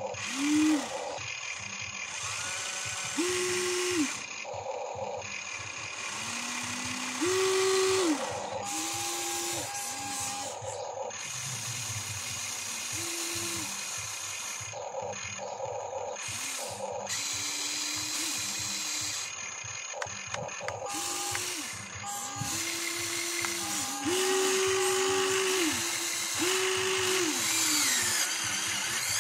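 Electric motors of a Huina 1594 RC excavator whining as the boom, arm and bucket move. The whine comes in many short runs, each rising in pitch as a motor starts and falling as it stops.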